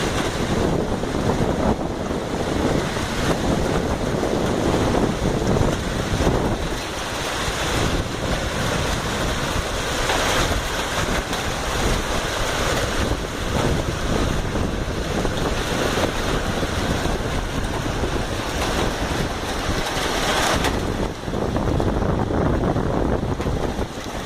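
Hailstorm: hail and heavy rain pelting down in a dense, continuous roar of countless small impacts. The hiss grows stronger through the middle and drops off suddenly a few seconds before the end.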